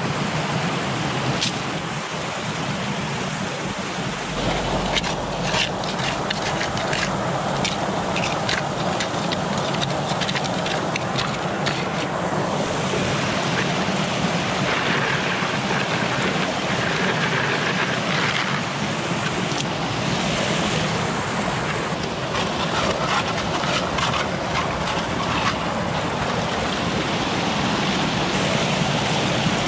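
Small mountain waterfall rushing steadily over rocks, with a run of short clicks and knocks between about five and twelve seconds in.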